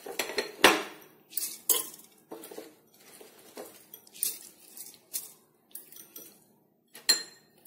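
Scattered clinks and knocks of metal utensils against a pressure cooker pot, with a short metallic ring about seven seconds in.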